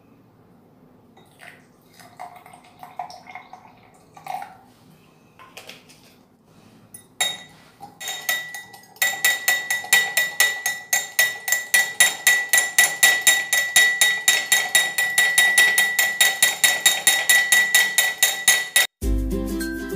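A metal spoon stirring instant coffee, sugar and warm water in a tall drinking glass, clinking against the glass about four or five times a second with a bright ringing tone. Fainter handling sounds come before the stirring starts.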